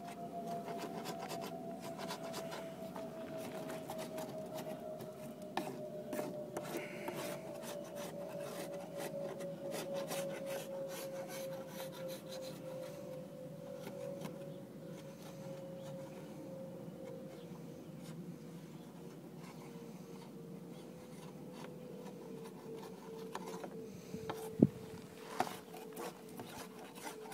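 Hand scraping of old coating softened by paint stripper off a boat's hull: a rough, continuous scraping and rubbing with many small clicks. A faint steady tone sinks slowly in pitch underneath.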